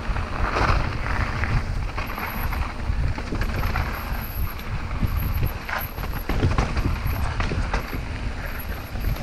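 Wind buffeting the microphone of a camera on a mountain bike riding a dirt singletrack, over the rumble of tyres on dirt and frequent short knocks and rattles as the bike goes over bumps.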